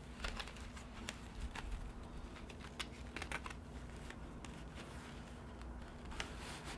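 Faint, irregular clicks and taps from opening a DJI Phantom 4 Pro propeller case and handling the propellers, over a steady low hum.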